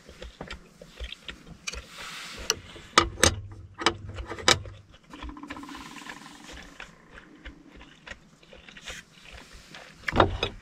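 Close-miked chewing of a mouthful of rolled omelette, with sharp clicks as wooden chopsticks are set down on a chopstick rest and the table, loudest about three to four seconds in. Near the end comes a louder knock as a hand takes hold of a beer glass on the table.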